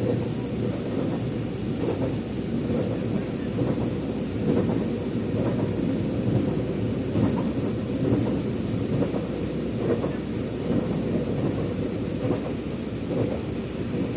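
Metro train running between stations, heard from inside the carriage: a steady low rumble of wheels on rail with faint, irregular knocks and clatter.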